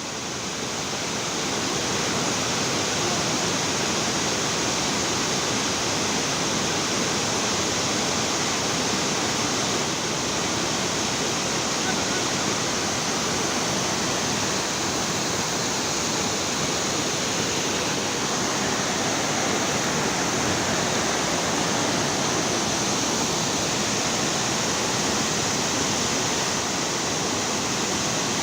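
Steady rush of water, like a waterfall or fast river, running without change.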